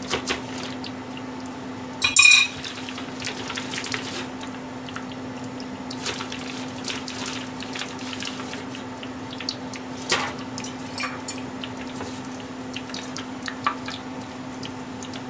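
Metal mixing bowl and utensils clinking and scraping as small pond smelt are tossed in flour, with one loud ringing metallic clank about two seconds in. A steady low hum runs underneath.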